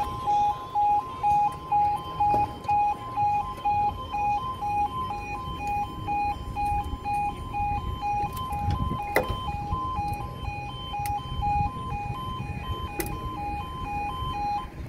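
Level crossing's electronic two-tone warning alarm, alternating between two pitches about three times a second. It is louder for the first few seconds, then steadier and quieter. A single sharp knock comes about nine seconds in.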